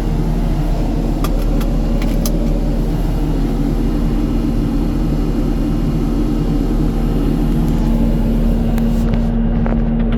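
2015 New Holland skid steer's diesel engine running at a steady speed, with a constant low hum.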